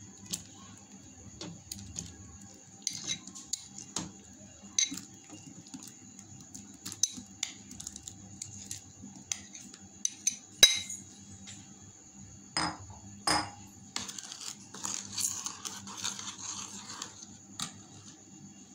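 Metal spoon clinking against a glass bowl and a dish while banana slices are scooped out and dropped into milk. The clinks come at irregular moments, the loudest a little past the middle, and a softer scraping stretch follows.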